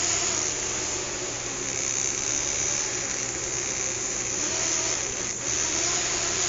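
Small fischertechnik electric motor spinning a propeller: a steady whirring buzz, with a short dip about five seconds in.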